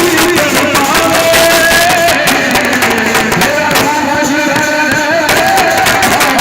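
Indian band music in Gujarati style: a held, wavering melody line over fast, dense drumming.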